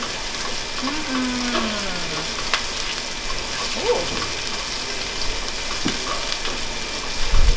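Shrimp and garlic sizzling steadily in hot oil in a pan on a gas stove, with a slotted spatula stirring through them.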